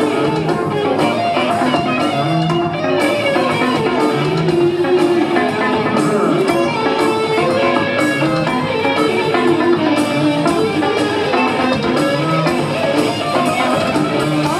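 Live rock band playing an instrumental passage: electric bass guitar, electric guitar and a drum kit, with a steady beat.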